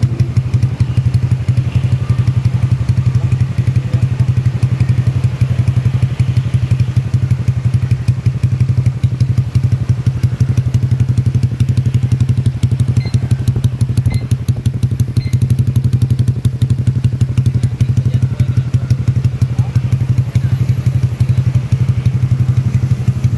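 A Honda Vario 150 scooter's single-cylinder engine, bored up with a 59 mm piston, idling steadily through a CLD Racing C3 round aftermarket exhaust. It gives an even, unbroken exhaust pulse at a constant low pitch, with no revving.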